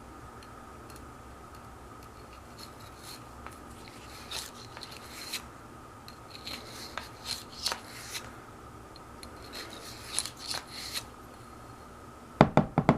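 Bore brush scrubbing back and forth through a Beretta 92FS pistol barrel, making short scratchy rasping strokes. Near the end comes a quick run of loud knocks.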